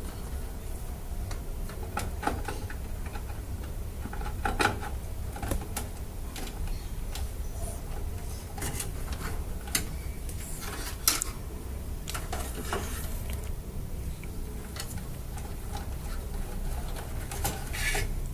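Power-supply cables and plastic connectors being handled, with scattered light clicks, taps and rustles at irregular intervals over a steady low hum.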